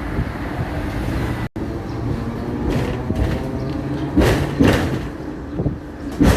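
Hong Kong double-decker tram running on its rails: a steady low rumble, with several sharp clattering knocks in the second half, the loudest near the end.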